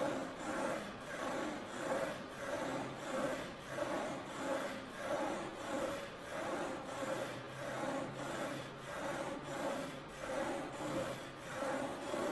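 Pen scratching across paper as a turntable-driven wooden linkage drags it in loops, with the linkage's wooden pivots rubbing. A rhythmic rasping that swells and fades a little under twice a second.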